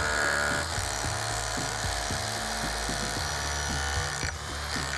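Cordless drill motor running steadily with a whine as it bores or drives into the wooden skirt board, then stopping about four seconds in. Background music with a beat plays underneath.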